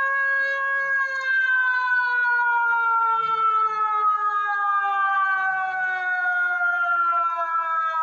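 A single siren-like wail with a rich stack of overtones, holding steady for about a second and then sliding slowly and evenly lower in pitch.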